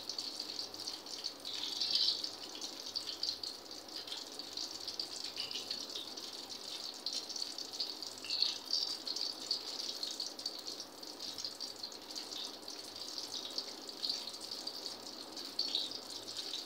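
Shakar para dough pieces frying in hot oil in a steel kadhai: a steady high sizzle with fine crackling that swells now and then.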